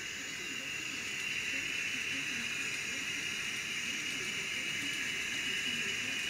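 Diesel engine sound from an ESU LokSound DCC decoder in a Kato N scale EMD SDP40F model, played through the model's tiny speaker. It runs steadily under a constant hiss as the train moves.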